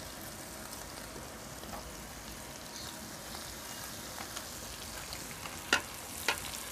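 Pieces of aara (snake) fish shallow-frying in oil on a flat tava: a steady sizzle with scattered small crackles. Two sharp clicks come near the end.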